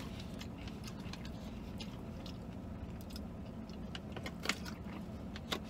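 Steady low rumble inside a vehicle cab, with faint clicks and crackles of a small plastic water bottle being opened and drunk from, a sharper crackle about four and a half seconds in.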